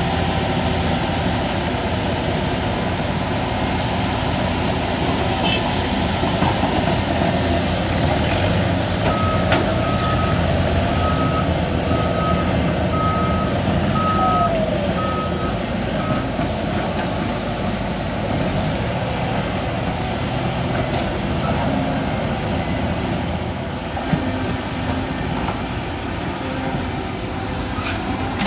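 Heavy diesel engines of excavators and a ten-wheel dump truck running steadily at work. Partway through, a backup warning alarm beeps about eight times at an even pace.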